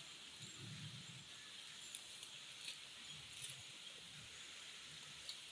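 Faint rustling and crackling of leafy green plant stems being pulled by hand, with scattered small snaps, over a steady background hiss.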